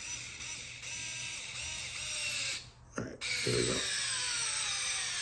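HOTO Li-ion Screwdriver Lite's small electric motor whirring as it drives a wood screw into a 2x4. It stops briefly about three seconds in, then runs again with its pitch slowly falling as it slows under the screw's load.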